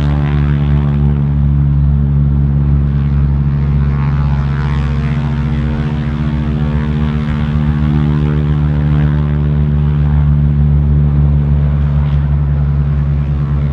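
Pratt & Whitney R-1340 nine-cylinder radial engines and propellers of North American Harvard trainers running at high power for takeoff, a steady drone.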